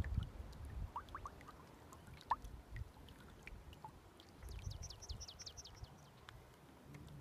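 Water dripping and trickling quietly around a gliding kayak, with a few small clicks. About four and a half seconds in, a bird sings a quick run of high notes, each sliding downward.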